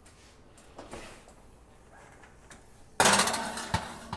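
A metal baking tray going into an oven: a few soft knocks, then a sudden loud metallic clatter about three seconds in that dies away over about a second, with a sharp clunk near the end.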